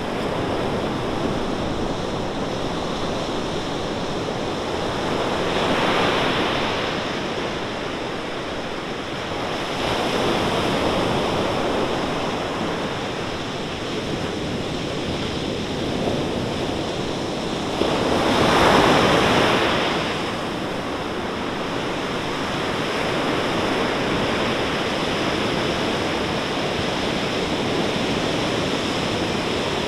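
Ocean surf breaking on a sandy beach: a steady wash of water with waves crashing louder about six, ten and nineteen seconds in, the loudest near nineteen seconds.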